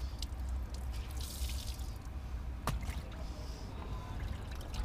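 Water dripping and trickling as a cloth is wiped over a flood-soaked car seat and wrung out, with one sharp click a little past halfway and a steady low rumble underneath.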